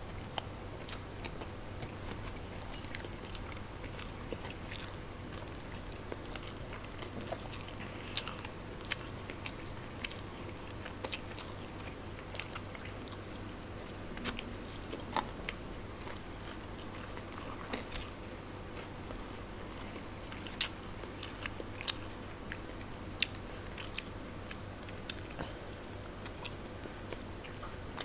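Close-miked eating: french fries and crisp snacks being bitten and chewed, with irregular sharp crunches and mouth clicks over a faint steady low hum.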